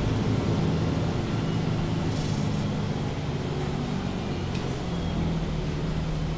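Diesel engine of a 2015 MAN Lion's City G articulated bus idling steadily while the bus stands, heard from inside the passenger cabin, with a brief hiss about two seconds in.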